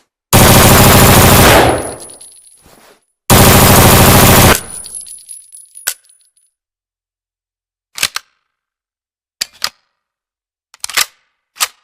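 H&K MP5A4 9 mm submachine gun firing two full-auto bursts of about a second and a half each, a couple of seconds apart, each trailing off in echo. After them come a single click and then a handful of short metallic clicks and clanks in ones and pairs.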